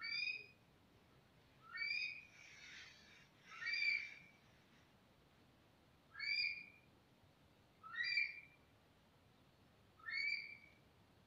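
Himalayan monal calling: a rising whistled call repeated six times, about every two seconds.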